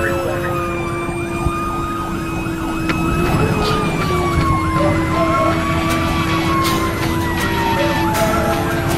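Fire engine siren wailing, slowly falling in pitch over several seconds, over the truck's engine and road noise, heard from inside the cab.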